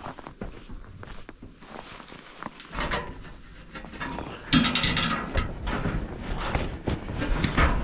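Footsteps crunching in snow with faint metal knocks, then about four and a half seconds in a sudden burst of metal clanging and rattling from the steel corral gate and livestock trailer door being handled, with further knocks after it.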